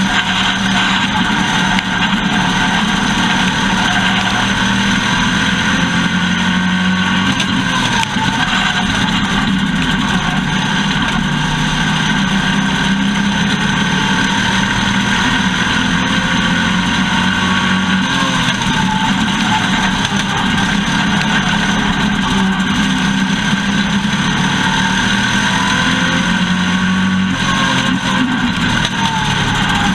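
Dirt-track race car engine running hard at fairly steady revs, its pitch dipping and recovering a few times.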